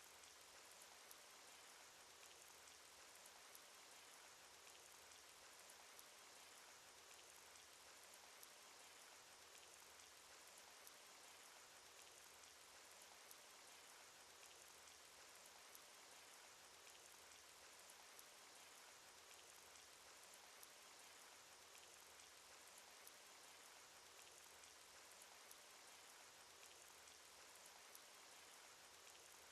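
Faint, steady cartoon rain sound effect: an even hiss of rainfall with scattered light raindrop ticks.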